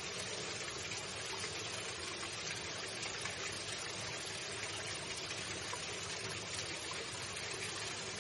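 Running water flowing steadily, a continuous rushing and trickling like a stream.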